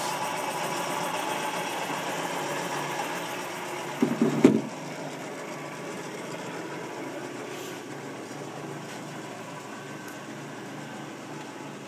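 South Bend engine lathe running on its 575-volt motor, the threading change gears turning with a steady mechanical run; the owner thinks it may need oil or an oil change. A brief louder noise comes a little over four seconds in.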